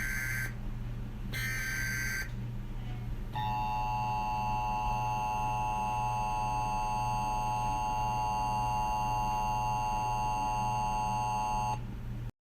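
Emergency Alert System tones: two short bursts of screeching digital data, then the steady two-tone EAS attention signal buzzing for about eight seconds before it cuts off abruptly near the end. A low hum runs underneath.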